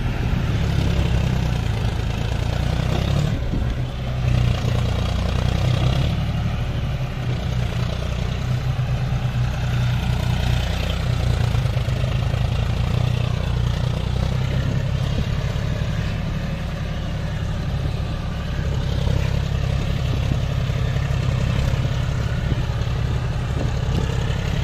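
John Deere 5105 tractor's three-cylinder diesel engine running steadily under load while pulling a fully loaded soil trolley.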